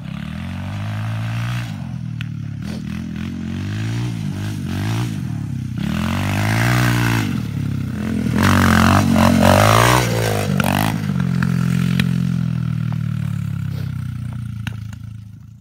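Small dirt bike engine revving up and down over and over as it is ridden, loudest about two-thirds of the way through, then cutting off abruptly.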